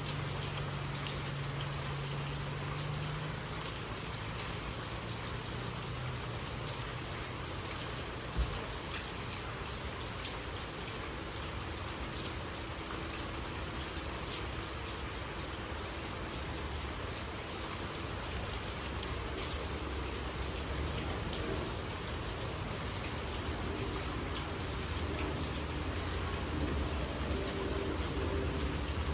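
Steady water hiss with fine pattering throughout, and a single sharp knock about eight seconds in.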